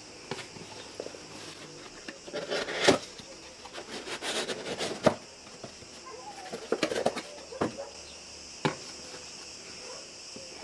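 Cardboard packaging of a boxed motorcycle battery being handled: flaps and inserts rustle and scrape, with a few sharp knocks, the loudest about three and five seconds in. A steady high chirring of insects runs underneath.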